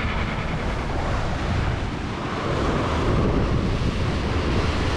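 Wind buffeting the microphone over the rush of sea water and waves along a sailing yacht's hull as it sails under full canvas.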